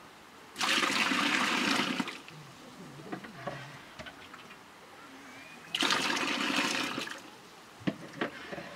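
Water poured from a cup into a steaming metal pot on a wood fire, splashing twice for about a second and a half each time. A few light knocks of metal and crockery follow near the end.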